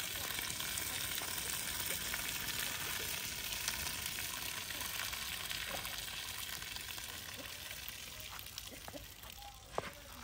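Hot water being poured off a pan of boiled lasoora (Assyrian plums), a steady splashing hiss that slowly fades, with a few light knocks of the pan near the end.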